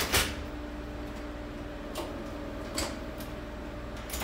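Aluminum storage-cabinet hardware clicking and clacking as a cabinet door or slide-out is unlatched and opened: a sharp clack at the start, then four lighter scattered clicks, over a faint steady hum.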